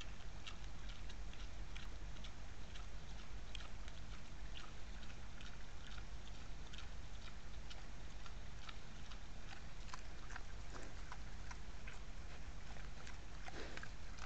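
Wild boar foraging in leaf litter: irregular small crackles and ticks from leaves and twigs, a few a second, over the trail camera's steady low hum, with one louder, deeper crackle near the end as it roots with its snout.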